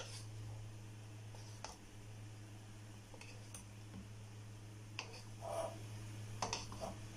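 Wooden spatula scraping and knocking against a pan while tossing cooked rice noodles, with a scattering of short taps that cluster near the end, over a steady low hum.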